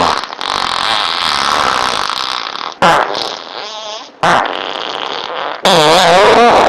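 A string of farts one after another: a long raspy one, a short burst, a brief wavering one, another raspy stretch, then a louder pitched one that wavers up and down near the end.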